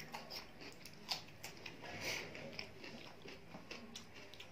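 Close-up mouth sounds of a person chewing a handful of rice and curry eaten by hand: a string of short, wet clicks with a sharper one about a second in.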